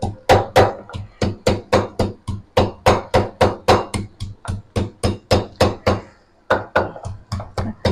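Wooden pestle pounding green chillies in a wooden mortar to make chilli paste: a steady run of knocks, about four a second, with a brief pause about six seconds in.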